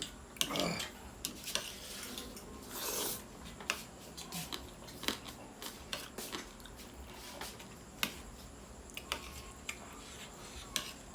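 Eating from a bowl of noodle soup: a utensil clicks and clinks against the dish many times, with two short rushing sounds, one about half a second in and one about three seconds in.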